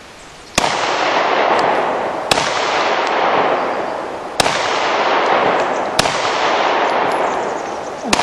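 Five shots from a Glock pistol, spaced about one and a half to two seconds apart, each followed by a long echo that fades slowly until the next shot.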